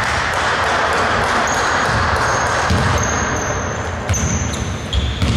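Basketball game play on an indoor court: a basketball bouncing with dull thumps and sneakers squeaking, short high squeaks about a second and a half in and again around four seconds, in a large echoing hall. A broad rushing noise fills the first couple of seconds.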